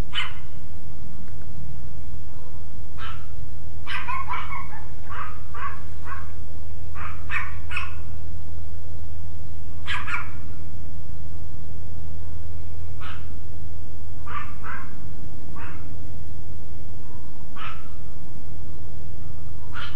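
Dogs barking in short outbursts, off and on: single barks and quick runs of three or four barks. A steady low hum runs underneath.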